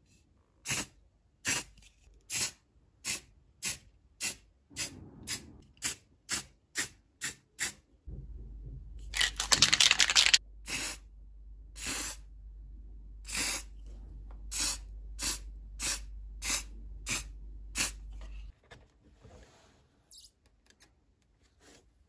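Aerosol spray-paint can being shaken, its mixing ball rattling in quickening strokes. Then comes a hiss of spray lasting about a second and a half, followed by a string of shorter regular strokes.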